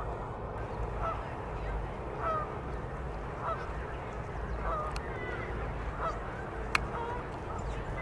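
Geese honking, a short call about once a second, five or six in all, over a steady background hum. A single sharp click sounds near the end.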